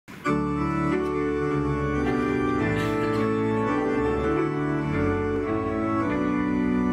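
Hymn music: sustained organ-toned chords held and changed on a keyboard, with a flute playing along.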